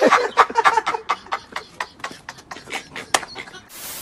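A man's voice in rapid short bursts, choppy and excited, then a burst of static-like hiss near the end.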